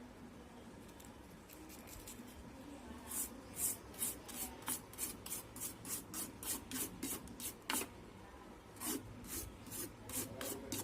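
Circuit board of a CRT TV being scrubbed clean after resoldering, in quick back-and-forth strokes about two to three a second that start a few seconds in, with a short pause near the end.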